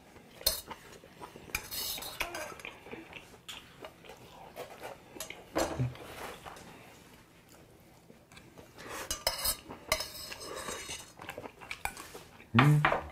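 Metal spoon clinking and scraping against a brass bowl while rice is scooped from it, with scattered short clinks throughout. A brief low hum from the eater comes near the end.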